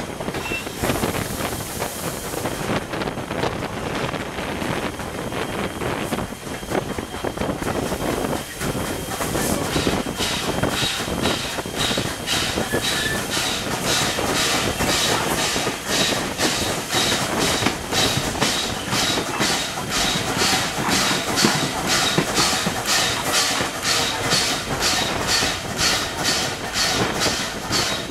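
1910-built former Canadian National 2-6-0 steam locomotive and its train under way, heard from an open car: steady rumble of wheels on rail with a hiss near the start, and a regular rhythmic beat that grows stronger about ten seconds in.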